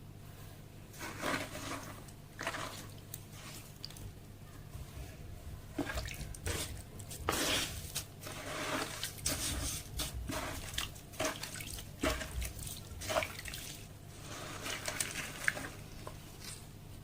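Sand-cement slab pieces crumbling in water: irregular wet crackling and crunching with drips.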